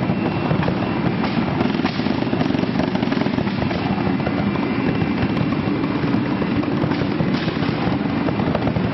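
Fire display: a steady roar of flame jets with sparks, broken by a few sharp crackles and pops.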